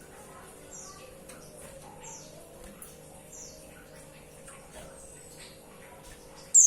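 Female white-eye (pleci) calling: short, high chirps that slide downward, repeated about every second and a bit, with one much louder call near the end. A faint steady hum lies underneath.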